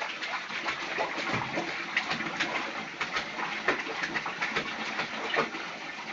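Bathwater splashing and sloshing in a tub as a baby moves and slaps at the water, with many short splashes, mixed with the baby's small cooing sounds.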